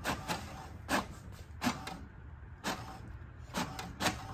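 HP DeskJet 2721 inkjet printer feeding out a printed page, its mechanism running with a low hum and irregular clicks, with a short lull about two seconds in. It is finishing the printer's wireless information page.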